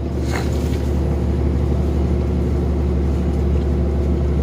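Truck engine pulling under load up a hill, heard from inside the cab: a steady low drone that gets louder in the first half-second and then holds. A faint click comes shortly after the start.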